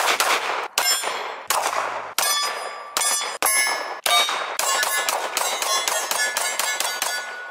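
Glock 30SF .45 ACP pistol shots hitting steel targets, each hit leaving the steel plates ringing. Several single shots in short cut-together bursts give way to a rapid string of about a dozen shots, roughly five a second, near the end.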